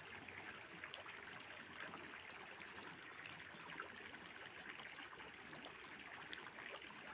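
Faint, steady trickling of water in a catfish pond, with many small scattered splashes.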